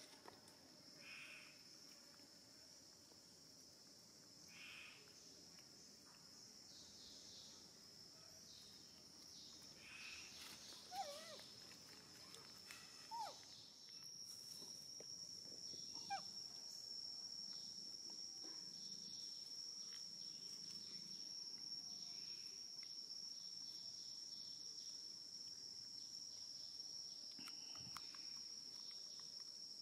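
Faint steady high-pitched insect drone, louder from about halfway through, with a few short squeaky animal calls scattered through it.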